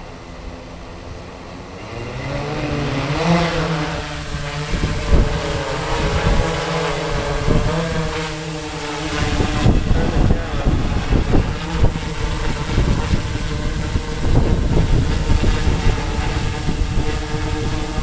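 The six electric motors and 16-inch propellers of a Sky-Hero Spyder 6 hexacopter spin up about two seconds in, rising in pitch as it lifts off. It then settles into a steady multi-tone hum while hovering. Gusts of rotor downwash rumble on the microphone below it.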